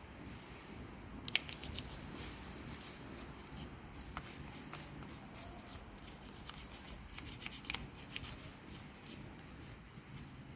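A towel rubbing and wiping over a car battery to dry it, a run of quick scratchy rustles that starts about a second in and eases off near the end.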